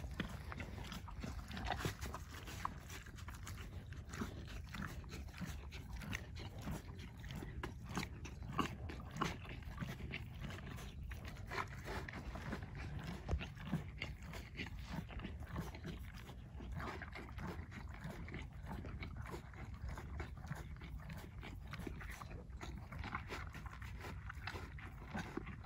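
Horse eating grain feed with its muzzle in a rubber feed tub: irregular crunching and chewing clicks.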